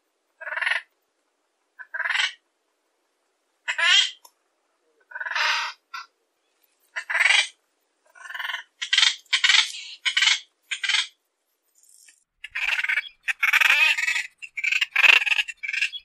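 Black noddy (Anous minutus) calling: five short calls about a second and a half apart, then faster, overlapping calls from about eight seconds in.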